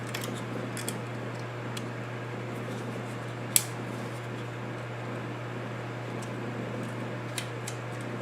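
Steady mechanical hum with a constant low tone, broken by a few light sharp clicks from small tools, the loudest about three and a half seconds in.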